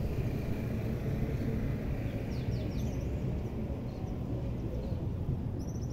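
Open-air ambience: a steady low rumble with a few short, high bird chirps about two and a half seconds in and again near the end.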